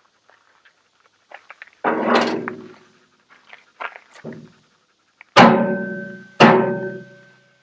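Three loud ringing metal clangs from the hardened steel tooth bar and loader bucket being struck while the bar is fitted and bolted on, the first about two seconds in and two more close together near the end. Each clang rings on and fades over about a second, with small metal clicks between them.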